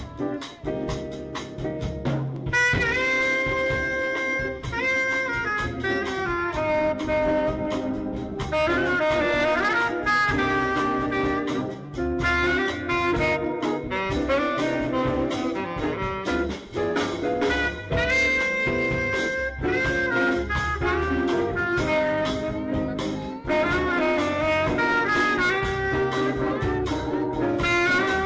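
Live jazz band: a saxophone plays the melody in held and stepping notes over electric guitar, drums and organ. The saxophone line comes in about two and a half seconds in.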